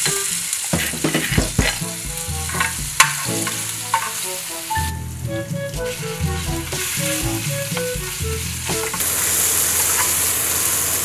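Chili-garlic paste and minced pork sizzling and frying in hot oil in a nonstick grill pan while being stirred with a spatula. Sharp clicks and knocks of the clay mortar and spatula against the pan come through in the first few seconds, and the sizzle is loudest near the end.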